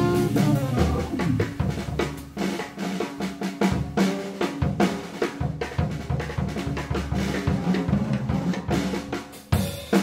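Jazz drum kit taking a solo break, busy snare and bass drum with rimshots and cymbals, over low held notes. The tenor saxophone drops out early on and comes back in near the end.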